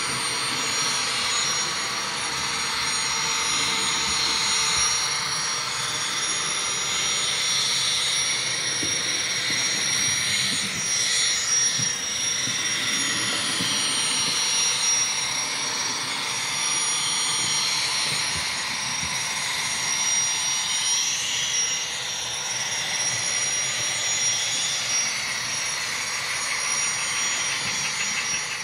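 Model gas turbine locomotive's sound system playing a steady jet-like turbine whine, its pitch wavering a little now and then.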